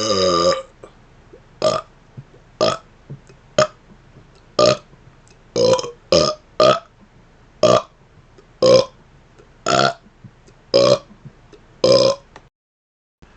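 A man burping deliberately: a long, deep pitched burp ends about half a second in, then about a dozen short burps follow one by one, roughly one a second.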